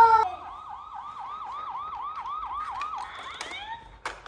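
Electronic siren sound effect from a Paw Patrol toy, a fast yelp of falling tones about four or five a second, fading out shortly before the end. A short click near the end.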